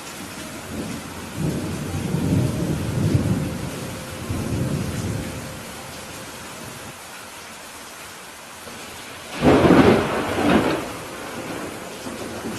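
Steady rain with thunder: a low rolling rumble through the first five seconds or so, then a louder, sharper thunderclap about nine and a half seconds in that dies away over a second or so.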